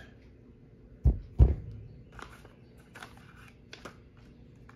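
Heavy barrel nut wrench set down on a rubber bench mat: two dull thumps about a third of a second apart, followed by a few faint clicks and rustles.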